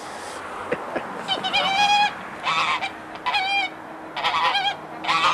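Two white domestic geese honking at close range, starting about a second in with a quick run of about five loud, nasal calls.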